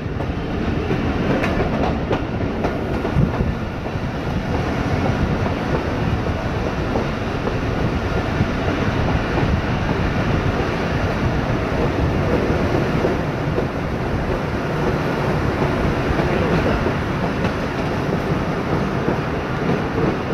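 Steady running noise of a moving passenger train, with the rumble and rattle of the carriage on the rails, heard from on board.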